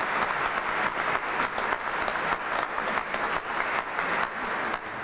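Audience applauding with many hands clapping, the clapping thinning out and dying away near the end.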